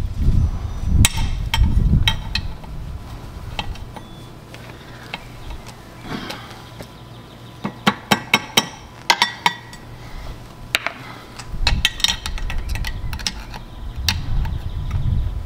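Metal clicks, taps and scrapes of a screwdriver working the prop nut and tab washer inside an outboard propeller's hub, bending the tabs into the nut's notches, with a quick run of sharp clicks around the middle. A low rumble is heard at the start and again near the end.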